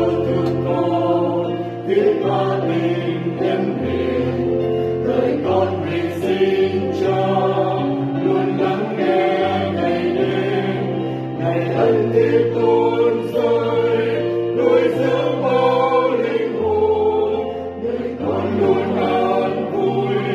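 Mixed church choir singing a Vietnamese Catholic Mass setting in part harmony, over sustained low bass notes that change every couple of seconds.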